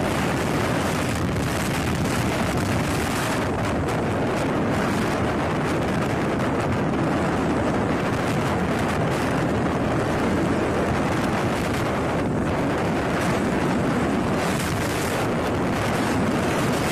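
Steady wind rush over the microphone of a camera on a moving motorcycle, with the motorcycle's running and road noise underneath.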